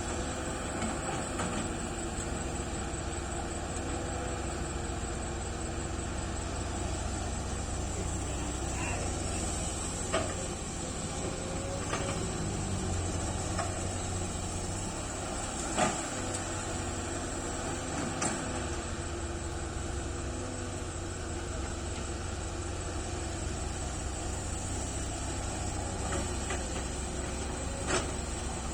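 Sany excavator's diesel engine running steadily while loading, with a few short sharp knocks scattered through.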